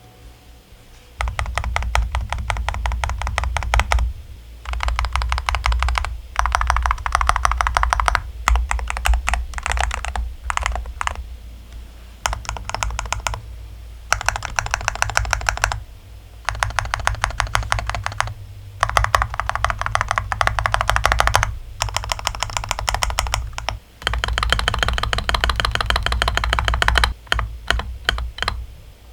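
Angrymiao Retro 63 RT keyboard's modifier keys being pressed in quick runs of clacks, each key stroke with a low thock. The runs last one to three seconds, with short pauses between them.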